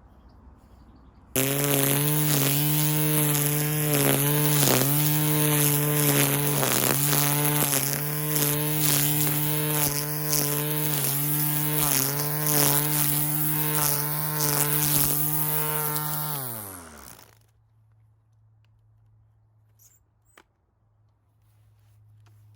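Grass trimmer motor starting suddenly at full speed about a second in, running steadily with brief dips in pitch as it cuts, then winding down with a falling pitch and stopping about three-quarters of the way through.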